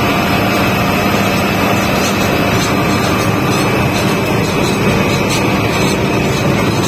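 John Deere S660 combine harvester running stationary with its threshing and separating machinery engaged and the straw chopper raised and not running: a loud, steady machine noise with a constant high whine over a low hum.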